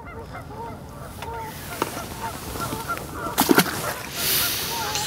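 Geese honking now and then in the distance, with a few sharp knocks, the loudest about two-thirds of the way in, and a rush of wind noise near the end.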